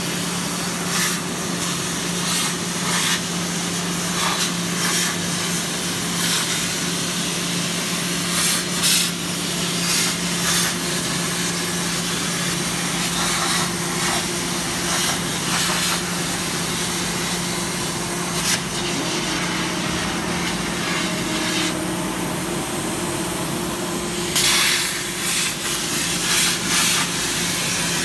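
CNC plasma cutter torch, run from a 65 A Hypertherm power supply, cutting metal sheet: a steady hiss with a low hum underneath and frequent short crackles.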